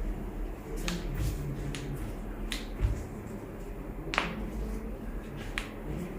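Joints popping and cracking as a chiropractor manipulates a patient's lower spine: about five or six sharp clicks at uneven intervals, the loudest about four seconds in, with a dull thump near three seconds.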